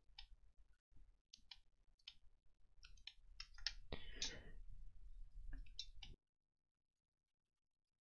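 Scattered mouse and keyboard clicks at a computer, a dozen or so short, sharp clicks at uneven intervals. The sound cuts out to dead silence about six seconds in.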